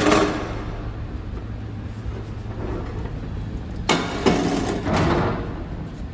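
Knocks and scraping as the top section of a slot-machine cabinet is set onto the base and shifted into place: a sharp knock at the start, then a few more knocks and scrapes about four to five seconds in. A steady low hum runs underneath.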